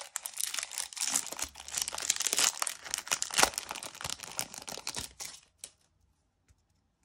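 Foil trading-card booster pack wrapper crinkling and tearing as it is ripped open and crumpled around the cards, a dense crackle that stops about five seconds in.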